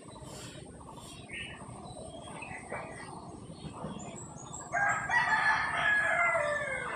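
A rooster crowing once, a long call of about two seconds starting past the middle and falling in pitch at its end, with a few faint bird chirps before it.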